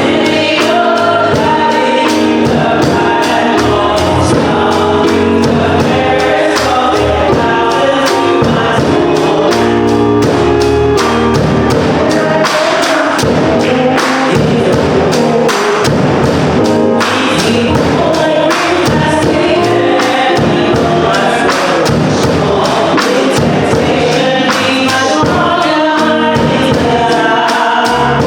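Gospel music with a choir singing over a band and a steady beat.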